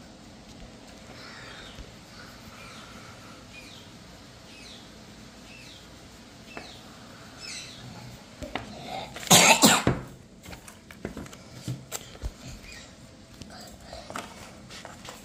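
A person coughing: one short, loud fit of a few coughs about nine seconds in, with faint small clicks after it.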